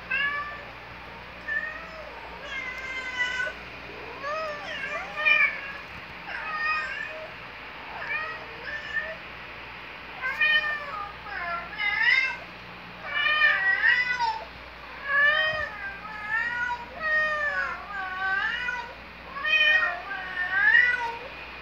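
Cat meowing again and again, short calls about once a second, many of them rising and then falling in pitch, with the loudest near the middle and near the end.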